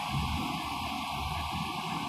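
Several Hyundai hydraulic excavators running together with a steady drone and an uneven low rumble, their booms holding a steel pipeline in slings as it is lowered into the trench.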